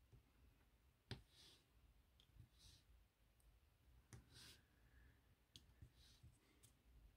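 Faint, scattered clicks and taps of a diamond painting pen picking up drills and pressing them onto the canvas, the sharpest about a second in.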